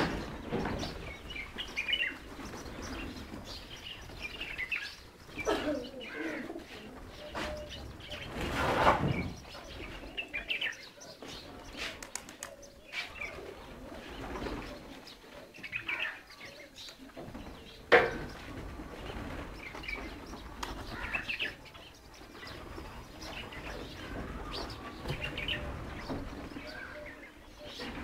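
Pigeons flapping their wings as they fly in among the feeding birds, with pigeons cooing and small birds chirping now and then. There are a few short sharp sounds, the loudest a click about 18 seconds in.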